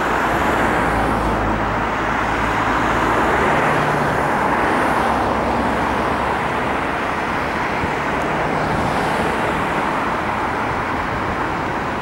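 Steady road traffic noise, with the low hum of passing vehicles' engines swelling in the first few seconds and again later.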